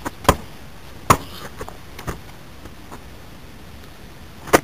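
A few sharp knocks or bumps at irregular intervals over a quiet background, the loudest one near the end.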